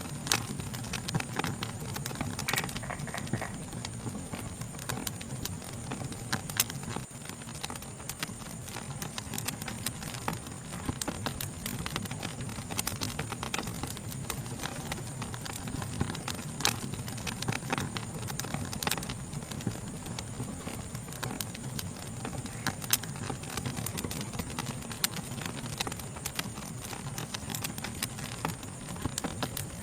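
Fire crackling: irregular sharp pops and snaps over a low steady rumble, with a steady high-pitched chorus of night insects behind it.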